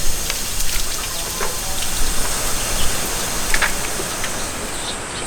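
Running water, a steady rushing noise, with scattered light clicks over it.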